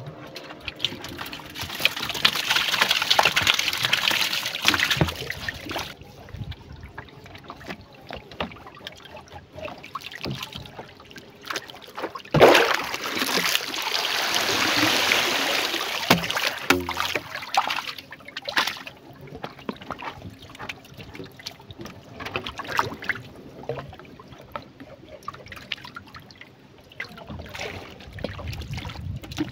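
River water splashing and trickling as a rubber bucket trap is worked over the side of a wooden canoe. There are two longer bouts of splashing, the second opening with a sharp knock, with small knocks and drips between.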